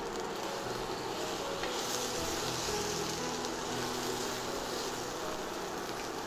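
Scrambling eggs and butter-fried pieces of brain sizzling steadily in a cast-iron skillet while a silicone spatula stirs them through.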